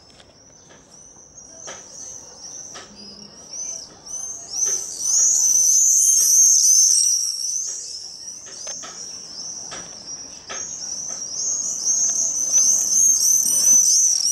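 Many birds calling at once in shrill, high-pitched chirps that overlap into a continuous chatter, swelling loud about five seconds in and again near the end, with a few brief clicks.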